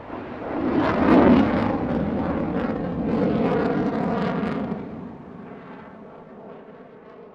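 Airplane flying past: a rushing engine rumble swells to its loudest about a second in, holds, then fades away after about five seconds.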